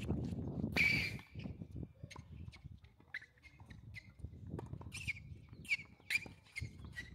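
Tennis ball hits and bounces on a court: sharp pops, each with a brief ringing tone. One loud pop comes about a second in, then a quick run of them near the end. Wind rumbles on the microphone in the first second.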